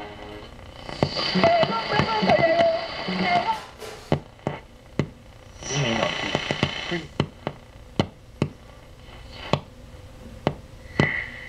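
Antique Atwater Kent 286 radio on the shortwave band being tuned across stations: short snatches of broadcast voice and music come from its speaker, broken by sharp static crackles. A steady high whistle comes in near the end.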